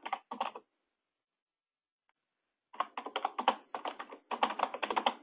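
Computer keyboard typing picked up over an open conference-call line: a short flurry of keystrokes at the start, then a longer run of rapid keystrokes from about three seconds in, each run starting and stopping abruptly.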